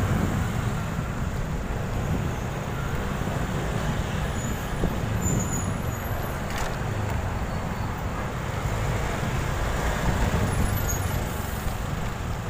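Motorcycle riding along the road: steady engine and road noise.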